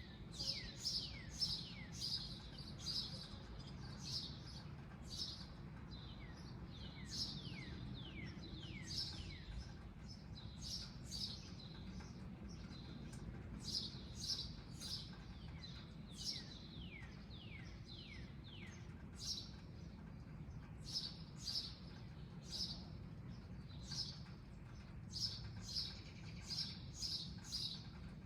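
Small birds chirping throughout: a steady string of short, high chirps, with runs of quick falling notes in between.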